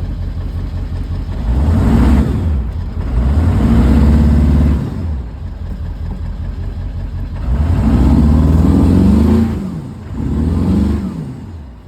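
Ford 7.3 Power Stroke V8 turbo diesel revved up four times from a steady idle, each rev rising and falling in pitch, as it is pushed to move on a transmission thought to be failing.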